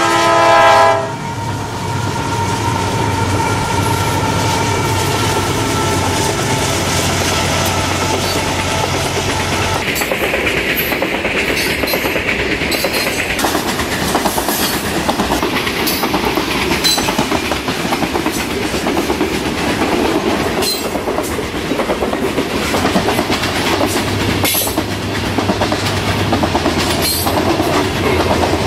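Kansas City Southern unit coal train passing at speed. The horn's chord cuts off about a second in and the lead diesel locomotives drone past. The coal hoppers then rumble and clack over the rail joints, with a high squeal for a few seconds around ten seconds in. Near the end the engine drone returns as the distributed-power locomotives on the rear go by.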